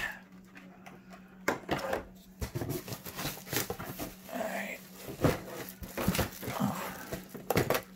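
Plastic packaging and a cardboard box being handled while a pair of speakers is unpacked: irregular crinkling, rustling and light knocks throughout.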